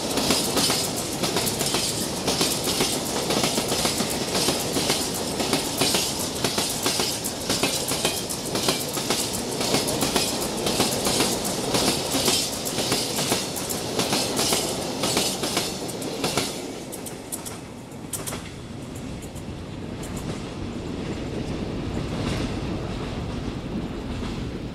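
Empty open freight wagons rolling past, their wheels clicking over the rail joints in a steady clatter. The clatter dies away after the last wagon passes, about two thirds of the way in, leaving a fading rumble.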